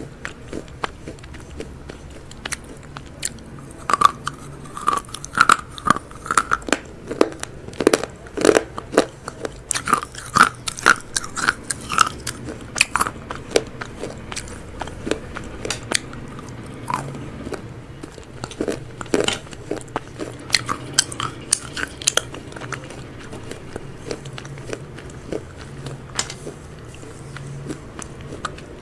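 Crispy fried chicken being bitten and chewed right at a handheld clip-on microphone: sharp, crisp crunches in clusters with softer chewing between. The crunching is heaviest through the first half and again about two-thirds through, and eases off near the end.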